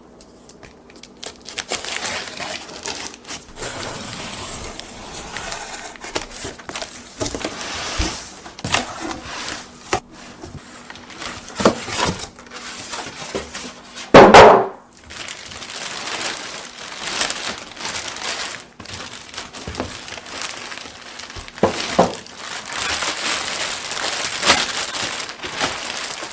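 Handling noise of work in progress: rustling and crinkling with scattered knocks and clatter, and one loud short thump about fourteen seconds in.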